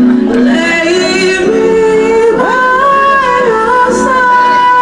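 A person singing a slow melody in long held notes that slide from one pitch to the next.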